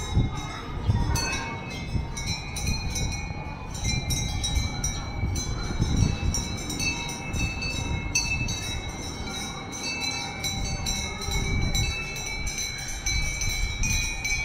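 Many small metal bells clinking irregularly and overlapping, their high ringing tones hanging on between strikes, over a low uneven rumble.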